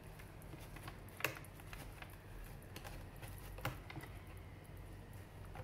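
Faint plastic clicks and light rattling as the filter assembly is worked loose and lifted out of a robot vacuum's plastic dust box, with two sharper clicks, about a second in and again nearly four seconds in.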